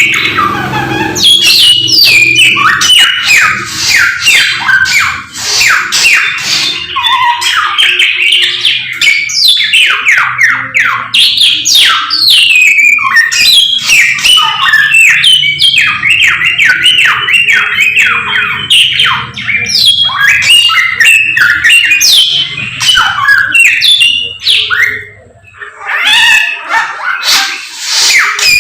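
Samyong songbird singing at full volume: a fast, unbroken stream of sharp chirps and downward-sweeping whistled notes, with a brief pause near the end.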